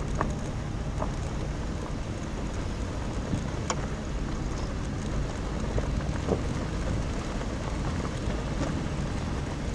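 Car driving slowly along a dirt road: a steady low rumble of engine and tyres, with scattered small clicks and ticks.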